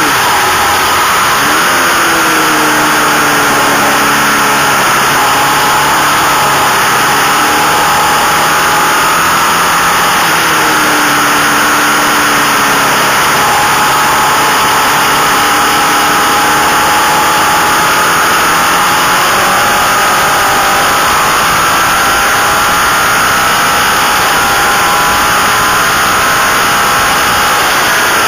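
Race motorcycle engine running hard, heard from an onboard camera, its pitch climbing and dropping repeatedly as the bike accelerates and shifts, under a loud, steady rush of wind.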